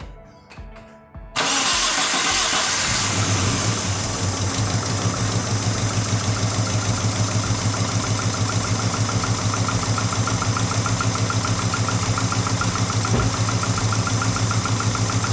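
Daihatsu Taruna's four-cylinder 16-valve engine, freshly top-overhauled, starting about a second in and catching at once on the first try, then idling with a steady, rapid pulse. It is running rough ('pincang'), a misfire caused by one valve on cylinder 4 set too tight, which loses compression.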